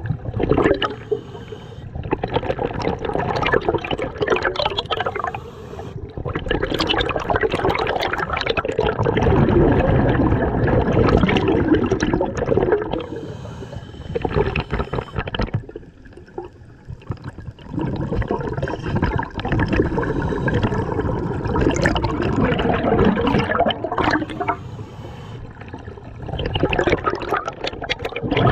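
Scuba diver's exhaled breath bubbling and gurgling out of the regulator close to the microphone. It comes in long surges several seconds each, with quieter pauses between breaths.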